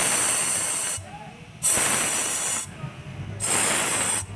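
Pressurised spray hissing in repeated bursts about a second long, with short pauses between them.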